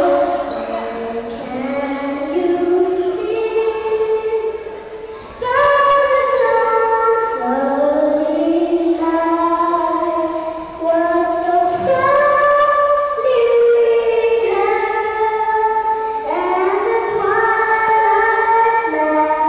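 Young girl singing the national anthem unaccompanied into a microphone, holding long notes phrase by phrase.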